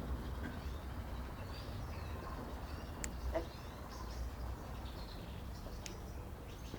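A black-backed grosbeak (rey del bosque) singing faint warbled, gliding phrases, with a few sharp clicks and a steady low rumble underneath.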